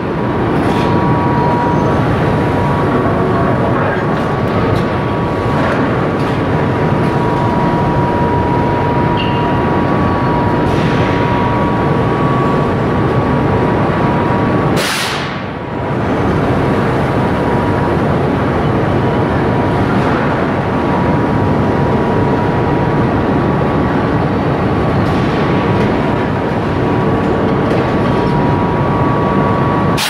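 Loud, steady machinery noise of a foundry charge-feeding system with its rail cart, with a steady high-pitched whine throughout; the sound dips briefly about halfway through.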